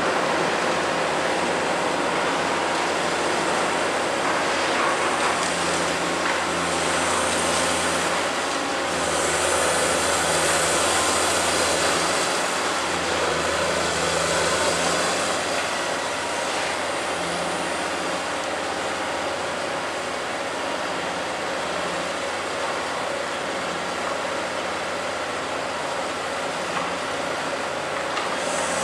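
Caterpillar 345C L hydraulic excavator running continuously: a steady diesel drone whose note shifts a little as the load changes, with a hiss higher up that comes and goes.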